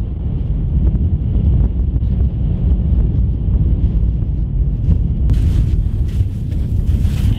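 Wind buffeting the camera microphone: a loud, steady low rumble, with a brighter rustling joining about five seconds in.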